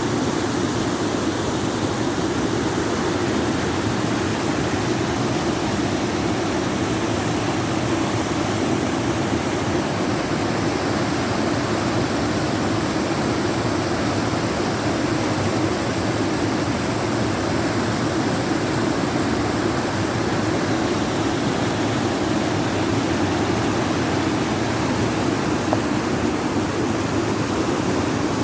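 Waterfall pouring steadily into a pool, a constant deep rushing of water.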